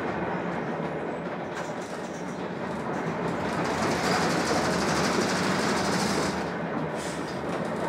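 Jelcz 120M city bus heard from inside while driving: its diesel engine running, mixed with road noise and interior rattles. The sound sags a little about two seconds in and builds again from about four seconds.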